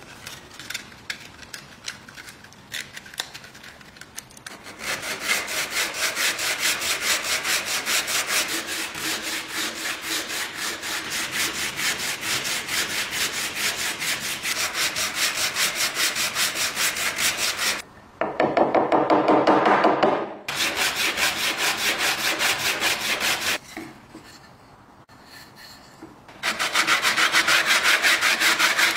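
Sandpaper rubbed rapidly back and forth by hand in the grooves of a rusty fluted metal bread-cutter part, scrubbing off rust in quick, even strokes. A few light handling clicks come first while the sandpaper is folded. The strokes pause twice, with a louder stretch a little past halfway and loud strokes again near the end.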